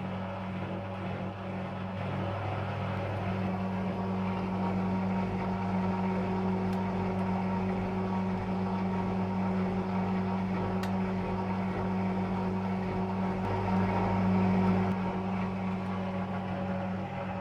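Servis MK322 washing machine's brush motor and drum running in the spin cycle: a steady hum with a fainter whine over it, swelling a little about fourteen seconds in, then easing slightly.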